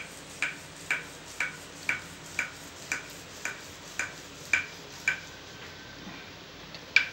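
Wooden rolling pin knocking against a round rolling board as an onion paratha is rolled out: short, ringing clacks about two a second that stop about five seconds in, then one louder clack near the end.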